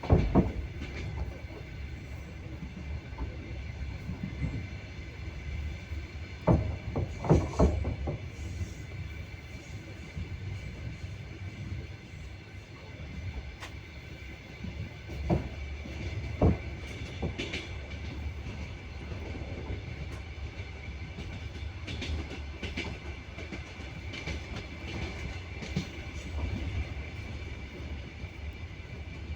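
Train wheels running on the rails: a steady low rumble with sharp clacks over the rail joints, a loud one at the start, a quick group of them about seven seconds in and two more around fifteen to sixteen seconds.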